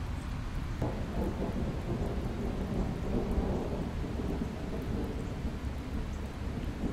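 Steady rain falling, with a low, continuous rumble of thunder.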